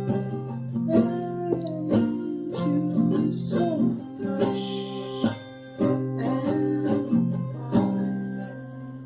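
Music: acoustic guitar playing plucked and strummed notes, fading out near the end.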